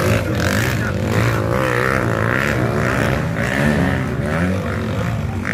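Several motocross dirt bike engines revving up and down as the riders race past on the dirt track, their pitches rising and falling and overlapping.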